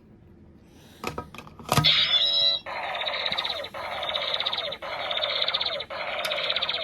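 Toy Kamen Rider W transformation belt (a copy of the CSM Double Driver with the Fang memory) clicking a few times as it is worked, then playing its electronic transformation sound effect through its small built-in speaker: a loud looping pattern of falling sweeps, repeating about once a second.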